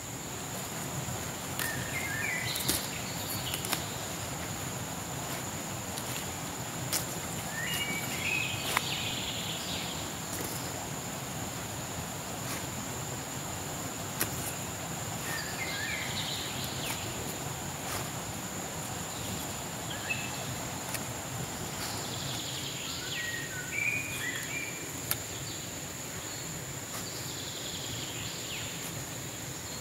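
Large knife cutting through the stalks of leafy greens in short, sharp cuts, heard a handful of times, over a steady high insect trill and scattered bird chirps.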